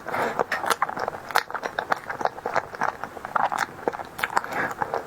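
Close-miked eating of a tiger skin dessert: repeated chewing and biting, heard as quick moist mouth clicks and smacks, several a second.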